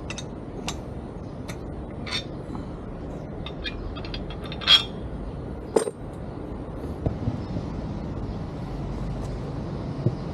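Metal tools and parts clinking and tapping during hand work on a car's suspension, about a dozen scattered sharp clinks, the loudest two about halfway through, over a steady low background noise.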